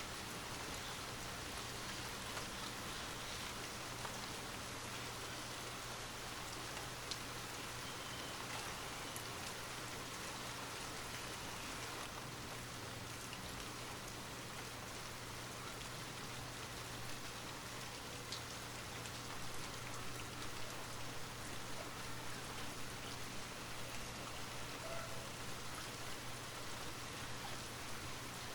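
Steady light rain, a continuous even hiss with scattered individual drops ticking on a surface.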